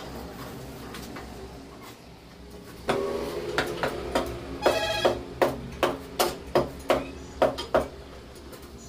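Steel T-bar handle of a tyre screw press clinking against its threaded rod as it is turned. About a dozen sharp, ringing metal clinks come two to three a second, starting about three seconds in.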